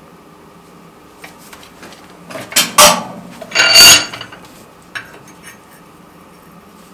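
Metal clanking against metal: two loud clatters about a second apart, the second one ringing, with a few lighter clinks around them.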